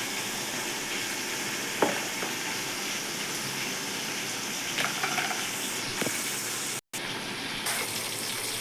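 Masala frying in hot oil in a cooking pot: a steady sizzle as it is stirred, with a few light knocks. The sound drops out for an instant about seven seconds in.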